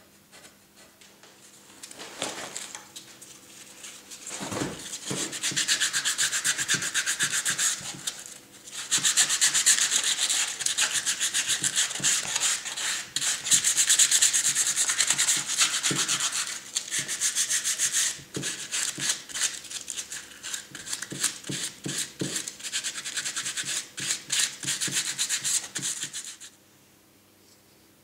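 Hand-sanding a carved limewood face with abrasive paper: quick, short scratchy strokes on the wood. It starts a couple of seconds in, pauses briefly twice, and stops near the end.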